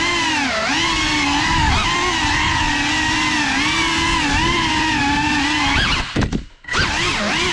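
GEPRC 3.5-inch cinewhoop drone's motors and propellers whining, the pitch rising and falling with the throttle. About six seconds in the throttle is chopped: the whine swoops down and nearly drops out for under a second, then spools back up.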